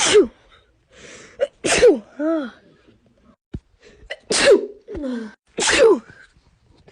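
A young woman sneezing four times in a row during an allergy sneezing fit. Each sneeze is a short, sharp burst that falls in pitch, with a quick in-breath before it, and a brief voiced sound follows two of them.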